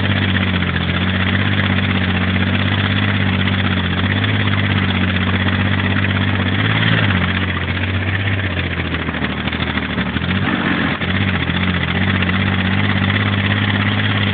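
Armoured vehicle's engine running steadily as it drives along a dirt track; the engine note drops and wavers about halfway through, then picks up again.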